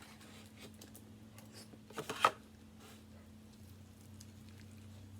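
Close-up eating sounds: a person chewing and handling barbecue chicken, with small clicks and crackles and a short, louder burst of strokes about two seconds in. A steady low hum runs underneath.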